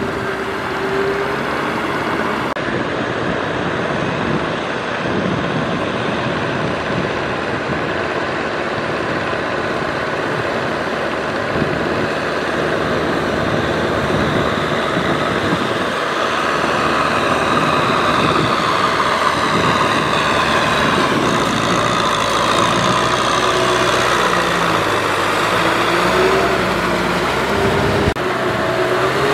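A Kubota M6040SU tractor's four-cylinder diesel engine runs steadily under load as it pulls a rotary tiller through a flooded paddy. It grows a little louder about halfway through.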